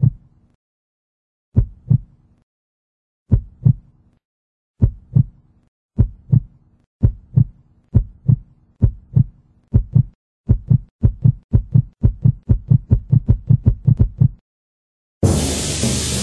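Heartbeat sound effect: pairs of low thumps, slow at first and speeding up steadily until they come about three times a second, then stopping. About a second later, near the end, a loud hissing burst of sound begins.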